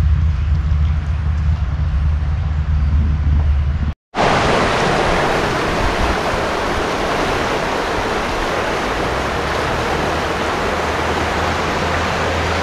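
A low rumble of wind on the microphone, then a sudden cut about four seconds in to the loud, steady rush of the flood-swollen Kern River running fast and brown.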